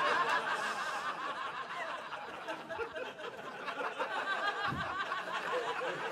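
Audience laughing at a punchline, loudest at first, dying down over a couple of seconds, then swelling again about four seconds in.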